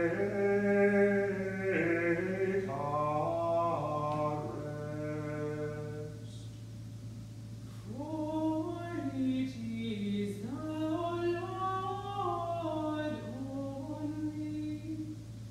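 Unaccompanied plainsong chant sung by the two cantors: one sung phrase, a pause of about two seconds, then another phrase.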